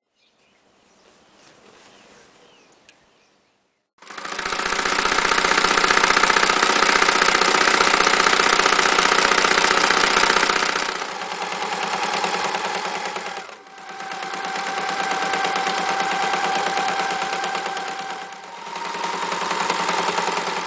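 Freshly restored Frister Rossmann Cub 4 electric sewing machine stitching through fabric: a fast, even rattle of needle strokes under the motor's hum. It starts about four seconds in, eases off briefly twice, and runs on.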